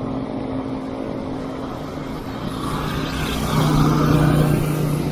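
Motor vehicle engine running close by on the road, a steady hum that grows louder and drops to a lower, steady pitch about three and a half seconds in.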